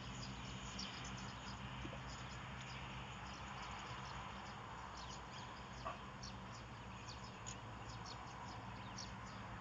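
Faint outdoor background: scattered short, high ticks and chirps over a steady low hum.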